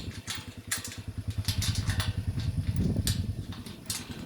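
ATV engine idling with a steady, even pulse, with scattered short clicks and rustles over it.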